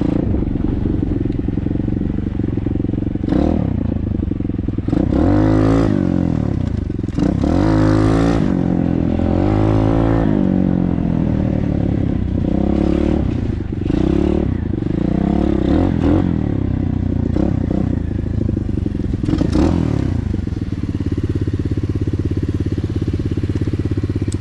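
Hawk 125 dirt bike's single-cylinder four-stroke engine running and revving, its pitch rising and falling again several times.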